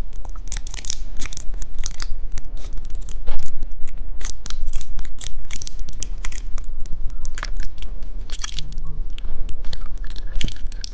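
Plastic packaging crinkling and tearing in quick, irregular crackles as small candy toys are unwrapped.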